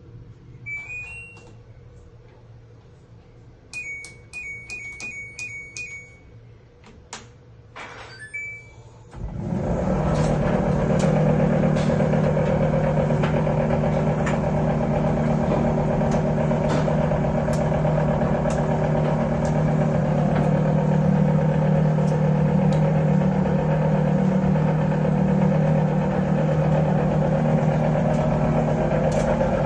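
Haier tumble dryer control panel beeping as buttons are pressed, a couple of clicks, then about nine seconds in the dryer starts and runs with a loud steady hum and faint regular ticks about once a second. The running noise is the extraneous sound the dryer is being checked for.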